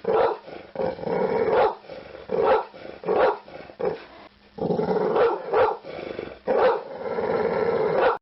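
Dog barking loudly and repeatedly: a string of short barks with some longer, drawn-out stretches between them, cutting off suddenly at the end.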